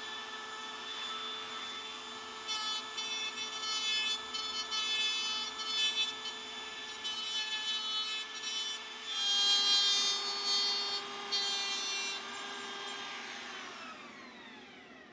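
Compact trim router running at speed and routing a circular pocket into plywood: a steady motor whine with uneven cutting noise as the bit bites into the wood. About 13 s in the motor is switched off and its whine falls in pitch as it winds down.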